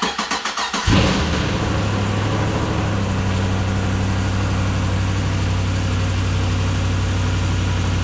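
A 2012 Chevy Caprice PPV's 6-litre LS V8, fitted with a larger camshaft and long-tube headers and running with its serpentine belt off, is cranked by the starter. It catches about a second in and then settles into a steady idle. The suspected lifter noise has not yet set in.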